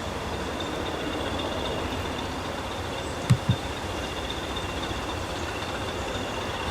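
A train passing slowly on a heritage railway: a steady rumble, with a double knock about three and a half seconds in, typical of a bogie's two wheelsets crossing a rail joint.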